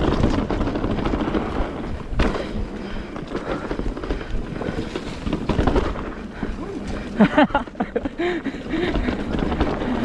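Mountain bike clattering and rattling over rocks and roots while riding, with wind buffeting the microphone. About seven seconds in, a rider's brief vocal call cuts through.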